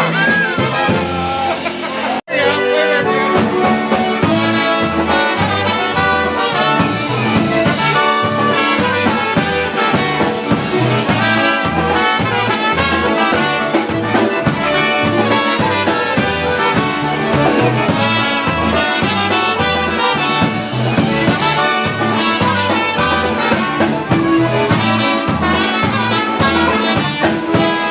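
Live polka band playing an instrumental passage: two trumpets leading, with a concertina and a piano accordion over bass guitar and drums keeping a steady beat. There is a very brief break in the sound about two seconds in.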